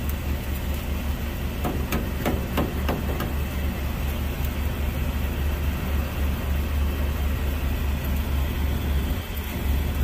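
A 2013 Ford F-150's 3.7-litre V6 idling steadily, with a quick run of sharp clicks about two to three seconds in from the fuel pump driver module's wiring being handled.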